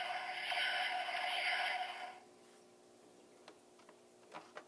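Electronic Star Trek sound effect playing from the Diamond Select Toys USS Enterprise-D model's built-in speaker, a steady hissing sound with a held tone that cuts off about two seconds in. Then a few faint clicks as a hand handles the model's saucer.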